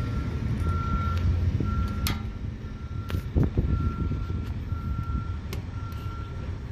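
Vehicle backup alarm beeping steadily at about one beep a second over a low rumble, with a few sharp clicks.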